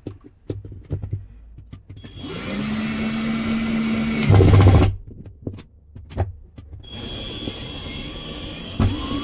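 Small electric motor running in two spells: a steady run about two seconds in that gets louder just before it stops near the five-second mark, then a second run with a high whine starting about seven seconds in. Handling knocks and clicks come before and between the runs.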